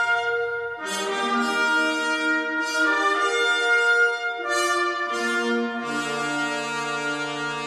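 Slow brass-ensemble music of held chords, each changing to the next about every one and a half to two seconds, played back through Tyler Woodmere II floor-standing hi-fi loudspeakers in the room.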